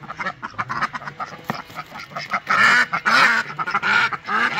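Indian runner ducks quacking repeatedly in short calls, growing louder about halfway through.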